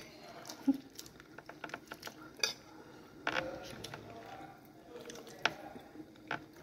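Light, scattered clicks and taps of dishes during a hand-eaten meal of rice and chicken, with a brief faint murmur of voice about three seconds in.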